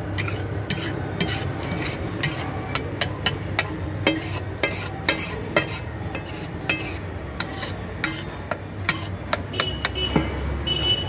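Metal spatula clinking and scraping against a large flat steel griddle (tawa) as a street vendor stirs and chops a thick chaat mixture: irregular sharp taps, a couple or more a second, over a low steady background hum. A short high-pitched tone sounds near the end.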